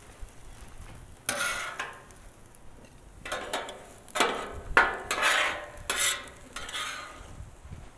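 Metal spatula scraping in a series of short strokes across the steel griddle top as browned hash browns are scooped up onto a plate.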